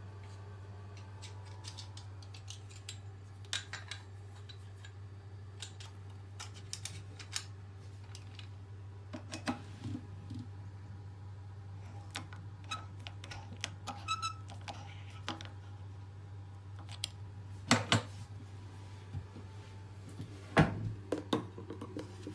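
Scattered clicks and knocks of small hard objects being handled, a couple of louder knocks near the end, over a steady low hum.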